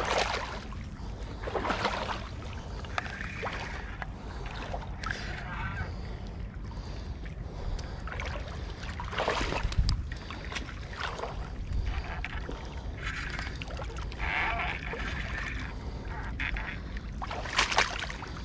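Wind rumbling on the microphone over water lapping at the flooded bank, broken by irregular short rustles and brushes, the loudest about halfway through and near the end.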